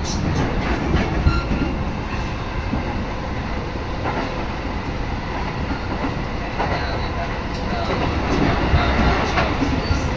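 Commuter electric train running, heard from inside the carriage: a steady rumble of wheels on rails with scattered clicks of clickety-clack.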